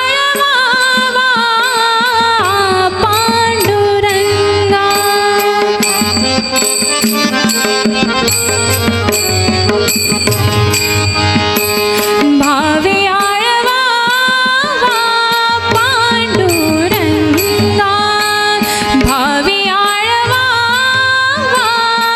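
Devotional bhajan music: an ornamented melodic line carried over a hand drum and a steady run of small cymbal or percussion strokes. The low drum drops out briefly twice in the middle.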